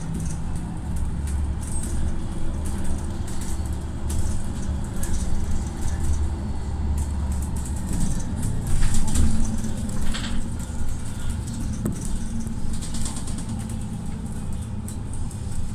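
Mercedes-Benz Citaro city bus heard from inside the passenger cabin while under way. Its engine makes a steady low drone whose note changes about halfway through, with light clicks and rattles over it.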